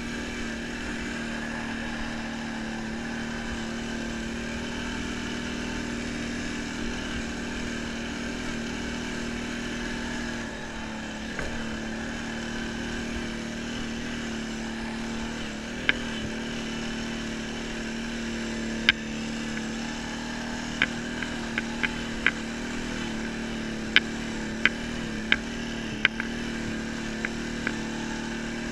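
ATV engine running at a steady, even pitch while riding a rough dirt trail. From about halfway through, a dozen sharp clicks and knocks come over the drone, most of them in the last ten seconds.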